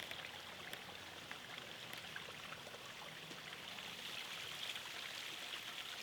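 Faint, steady rushing background noise with a few light ticks.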